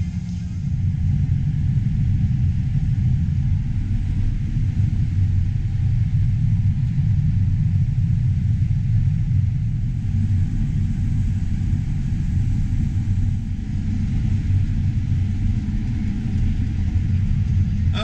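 John Deere S670 combine running while harvesting corn, heard from inside the cab as a steady low rumble that gets a little louder about a second in.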